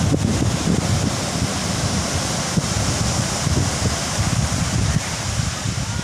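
Heavy ocean surf washing on a beach, a steady hiss of breaking water, with wind buffeting the microphone in a low, fluttering rumble.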